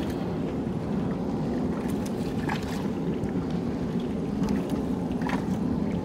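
Steady low rumble of wind and river water around a small wooden boat, with a few faint clicks.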